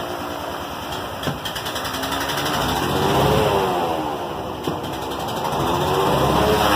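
Airboat air motor, a Honda 390cc single-cylinder engine turning a composite-bladed propeller, revved up and back down by hand on the remote throttle, then rising again near the end. The engine is not yet warmed up.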